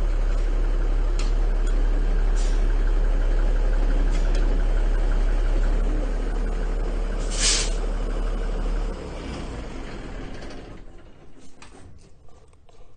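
Diesel engine running steadily at idle, with a short sharp hiss about seven and a half seconds in, then shut off about a second later. Only faint clicks follow.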